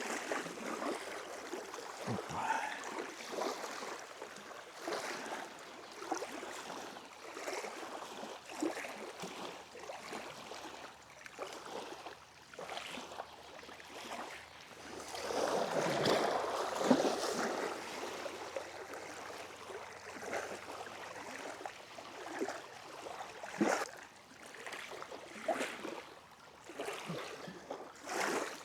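Water lapping and wind at the water's edge, with scattered small knocks and clicks throughout and a louder rush of noise about fifteen seconds in lasting a few seconds.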